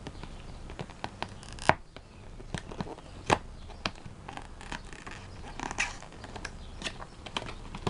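Plastic wrap on a small cardboard box being picked at and torn by fingers: irregular crinkling and sharp crackling clicks, the loudest about two and three seconds in.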